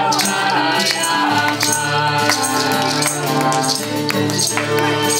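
Music: long held tones over a steady percussion beat of sharp, rattling strokes.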